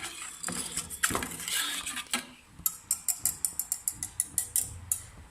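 A utensil stirring milk and beaten egg in a cooking pot, with scraping at first, then a quick run of clicks against the side of the pot, about five a second.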